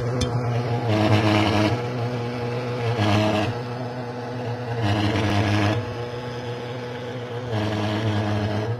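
Engine-driven fogging machine spraying disinfectant, running with a steady drone that swells with a louder hissing surge roughly every two seconds.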